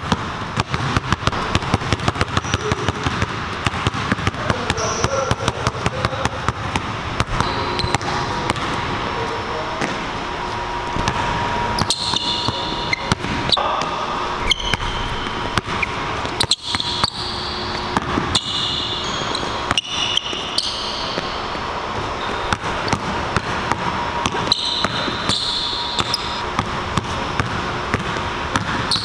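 Basketball dribbled rapidly and steadily on a hardwood gym floor, a quick regular run of bounces, with brief high sneaker squeaks now and then.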